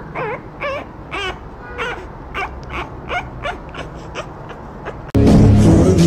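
French bulldog puppy whimpering: a quick run of short whines, about two or three a second, each falling in pitch. About five seconds in, loud music cuts in abruptly.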